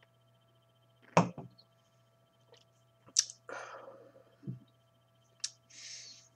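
A man's mouth sounds as he tastes a sip of beer: a few lip smacks and tongue clicks and a soft breath or two, with short silences between.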